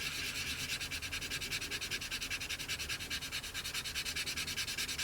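Fine abrasive sanding back and forth over a plastic model's wing in quick, even strokes of about six a second, with a dry hiss. The strokes are taking hardened Mr. Surfacer filler down flush with the plastic.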